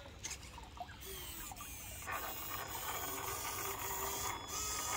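Traxxas Pro Scale RC winch reeling in its line under load, its small electric motor and gearbox giving a high whine that grows louder and fuller about two seconds in, with a few sharp clicks, as it pulls the truck up the bank.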